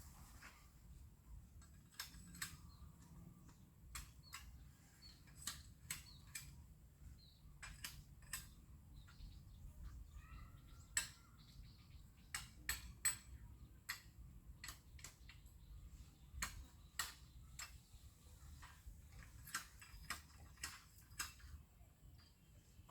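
Faint, irregular sharp clicks and light knocks, sometimes several in a second, over a low steady background.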